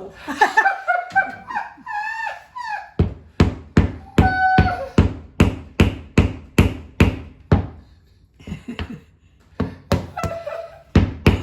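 Hammering: a run of about a dozen sharp knocks, roughly two a second, then a few more near the end.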